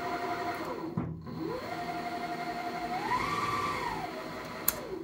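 Mini metal lathe's spindle and gears driven by a 1.2 hp brushless sewing-machine motor, whining as it runs. The pitch falls as the spindle winds down to a stop about a second in, then climbs straight back up as it restarts in reverse; it rises higher for a moment around three seconds in and falls away again near the end as the spindle slows.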